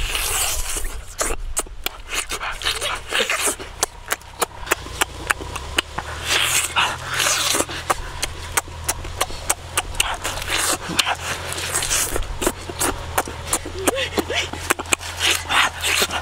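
Close-up eating sounds of a person biting into and chewing a whole chili-coated roast chicken: rapid wet smacking clicks and tearing of meat, with bursts of breathing between bites. A low steady hum runs underneath.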